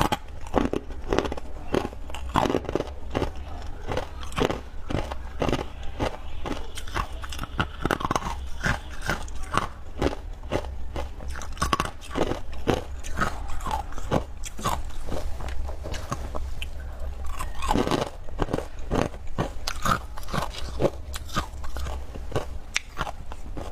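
Continuous irregular crunching, like someone chewing crisp food, over a steady low hum.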